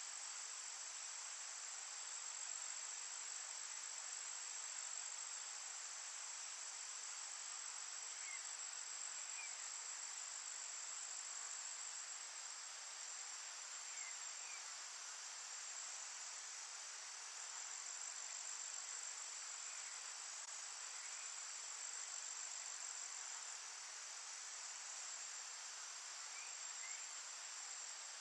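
Steady chorus of insects, cricket-like, making a continuous high trill over an even hiss, with a few faint short chirps now and then.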